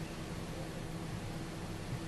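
Steady hiss with a low, constant electrical hum: room tone on an old video recording, with no speech or music.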